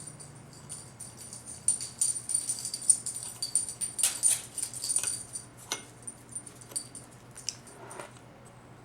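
Small metal parts clicking and jingling as they are handled, with short high ringing tones; busiest through the middle, then sparser ticks near the end.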